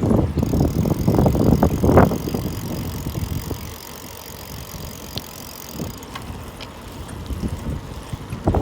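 Bicycle being ridden up a slope: rushing riding noise for the first couple of seconds, then quieter, with a few faint isolated clicks. The clicks are the occasional knock from the bottom bracket, which the rider puts down to its sealed bearings breaking up.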